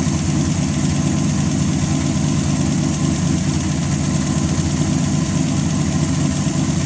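320-cubic-inch Buick straight-eight race engine idling steadily, with an even, unchanging note.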